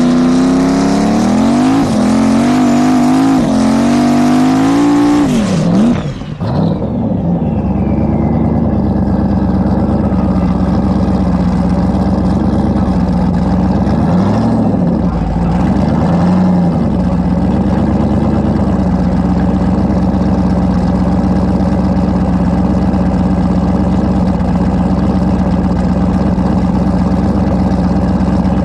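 For about the first six seconds a drag car's engine runs at full throttle, its pitch climbing steadily as the car accelerates, then it cuts off abruptly. After that an S10 drag truck's race engine idles steadily at the starting line, with a couple of short throttle blips about halfway through.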